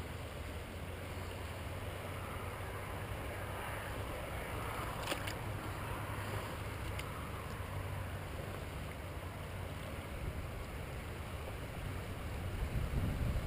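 Shallow river water flowing and lapping around a wading angler's legs, a steady rush with a low rumble underneath. A couple of faint clicks about five seconds in.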